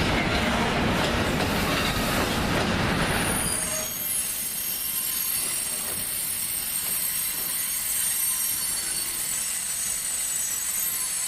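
Freight train running through a station: a loud rolling rumble of the wagons that drops away about three and a half seconds in. From about three seconds in, a high, steady, multi-toned squeal of the wagon wheels holds on.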